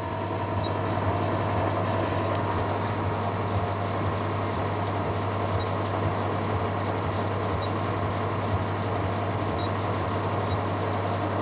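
1992 Feya microwave oven running with a steady electrical hum and a faint higher whine.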